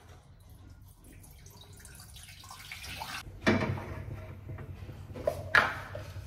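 Milk poured from a plastic packet into a steel pan, then two sharp metal clanks with a short ring, about three and a half and five and a half seconds in, as a small steel saucepan is set down and handled on a gas stove's grate.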